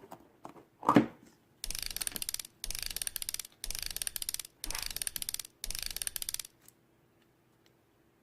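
Clear slime with pearl beads mixed in, worked by hand: five bursts of rapid crackling clicks about a second apart, after a single soft thump.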